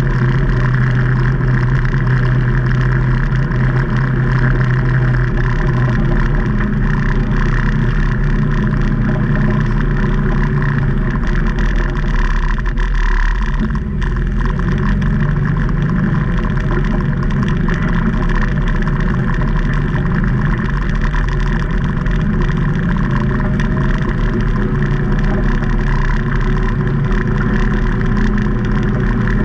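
A Can-Am Maverick Trail 800 side-by-side's Rotax V-twin engine running as the machine drives the trail, its pitch shifting up and down with the throttle. There is a brief drop in loudness about halfway through.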